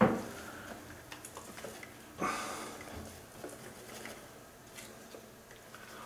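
Rustling and crinkling of packing paper and handling of potted plants in moss, with two louder rustles, one right at the start and one about two seconds in, and a few small clicks.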